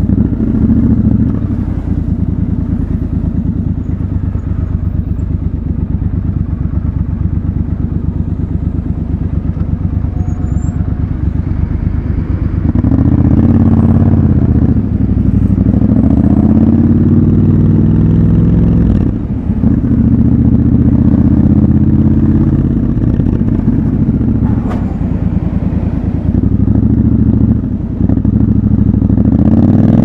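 Triumph Scrambler motorcycle engine heard from the rider's seat: running at low revs with an even pulse for about the first twelve seconds, then revving up several times, the pitch climbing and then dropping briefly between each rise, as at gear changes.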